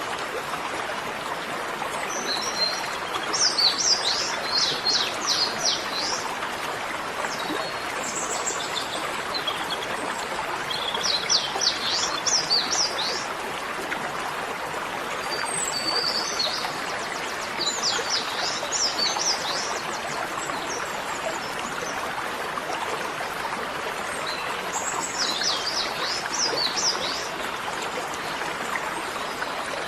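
A songbird singing in short bursts of rapid high chirps every several seconds, over a steady rushing hiss.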